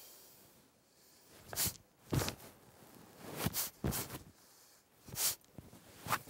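Movement sounds from a martial-arts performer on a wooden stage floor: six short scuffs and swishes, uneven in spacing, from his steps and sweeping arms. The scuffs about two and four seconds in are the heaviest.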